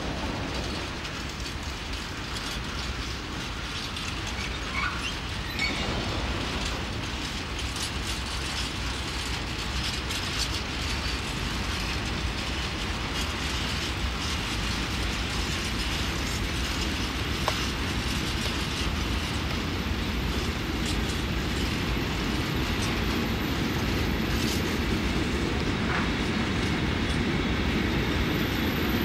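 Freight train of covered wagons behind a class 1600 electric locomotive rolling slowly through the yard, wheels clicking over rail joints and points. A few brief squeals break through, and the rumble grows a little louder near the end.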